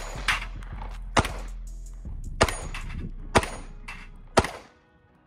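Glock 19X 9mm pistol fired five times at a steady pace, about a shot a second, at steel plate targets.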